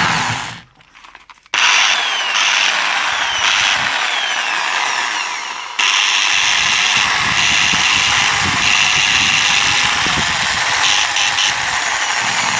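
Electric hand drill running at full speed on test, switched off about half a second in and started again a second later; it sags near the six-second mark, picks straight back up and runs on steadily. Its trigger switch has just been repaired and the drill runs normally.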